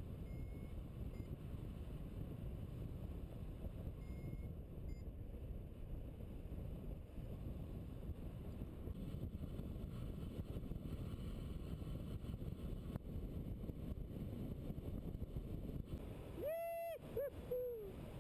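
Wind rushing over the camera microphone in paraglider flight, a steady low rumble. Near the end a clear held tone sounds, then a shorter one that falls in pitch.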